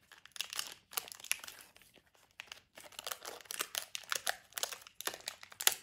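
Foil blind-bag packet crinkling and crackling irregularly in the hands as it is cut open with scissors, with one louder crackle near the end.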